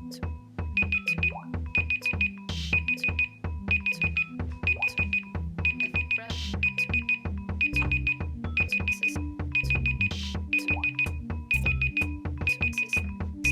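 Samsung phone alarm tone playing: an electronic tune with a steady beat and a short high beeping figure that repeats about every three-quarters of a second.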